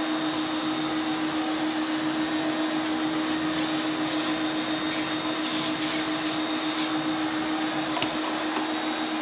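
A vacuum motor runs steadily with an even hum. Over it, a Chapin hand pump sprayer hisses in short spurts onto the carpet, several in quick succession around the middle.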